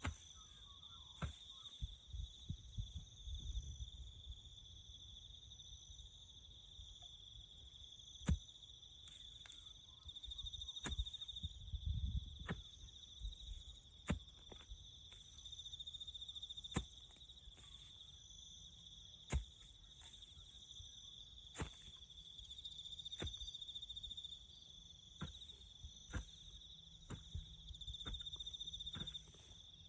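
Crickets chirping: a continuous, high, even chirring. Scattered sharp clicks or knocks break in now and then, the loudest about eight seconds in.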